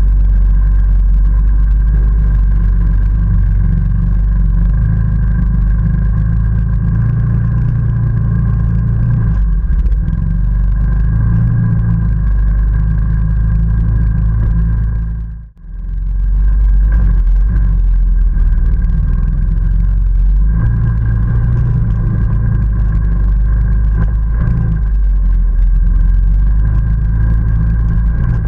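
ATV engine running under load along a muddy trail, a steady low rumble with a constant whine over it. The sound cuts out briefly about halfway through, then comes back.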